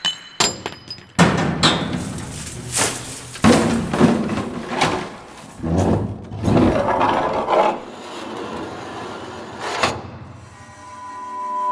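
A run of metal sound effects in a large reverberant hall: a few sharp metallic clicks with short ringing tones, then repeated heavy metal impacts, scrapes and rattles, each with a long echoing tail. Near the end a sustained musical tone fades in.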